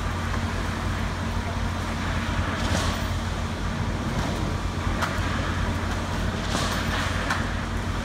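A concrete pump's diesel engine running steadily, a constant low drone, with a few brief scrapes of rakes and tools dragging through wet concrete.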